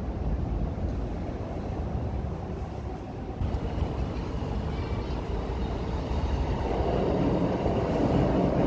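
A Keihin-Tohoku Line E233 series electric commuter train running past on the tracks. It is a steady rumble that builds from about halfway in and grows clearly louder near the end as the train comes alongside.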